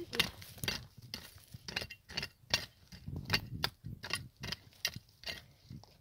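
Hand trowel digging into stony soil, its metal blade scraping and clinking against grit and pebbles in quick, irregular strokes, about two or three a second.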